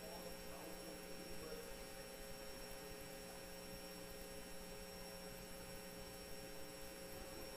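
Faint, steady electrical hum from the sound system, a few constant low tones over low room noise.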